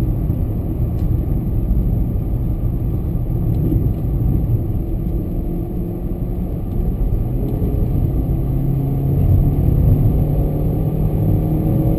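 2013 VW Fox 1.0's four-cylinder engine running while the car drives, heard from inside the cabin with steady road and tyre rumble; the engine note grows a little louder near the end.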